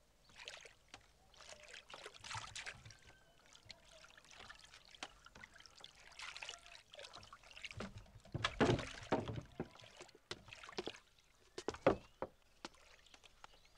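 Water splashing and sloshing in irregular swishes as a flat wooden boat moves along a canal, loudest a little past the middle. A few sharp knocks near the end.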